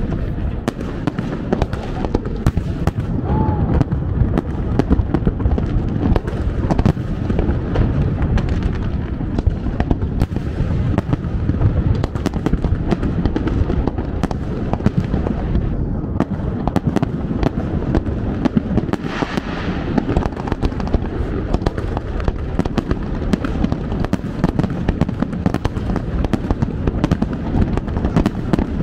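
Fireworks display: a dense, continuous barrage of bangs and crackles with no gaps.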